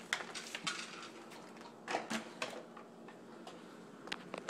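Scattered light clicks and brief rustles of handling, with a few quick sharp ticks near the end.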